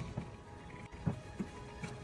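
A spatula stirring chicken in a thick gravy in a nonstick frying pan, with a few soft knocks and scrapes against the pan, over faint background music.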